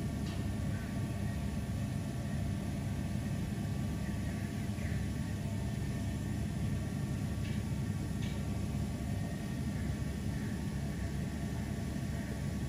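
Steady low background rumble, with a few faint, brief higher sounds.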